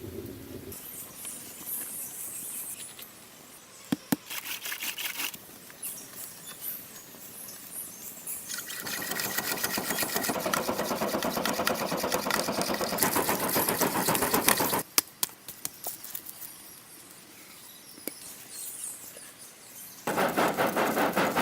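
Stone being scraped or ground by hand in long bouts of fast, even strokes, with quieter pauses and a few sharp clicks between them.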